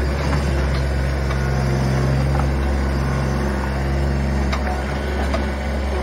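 Bobcat 463 compact skid steer's diesel engine running steadily, with a few faint clicks.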